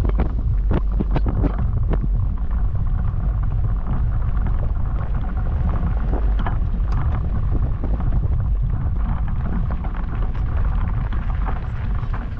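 A Jeep being driven on a logging road, heard from inside the cab: a steady low rumble of engine and tyres with many small clicks and knocks. It eases slightly near the end.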